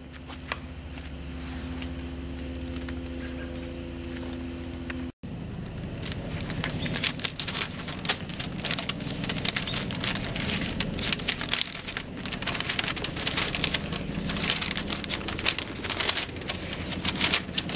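A steady low hum for about five seconds, then after an abrupt cut, sheets of paper rustling and crackling as they are unfolded and handled, over a fainter hum.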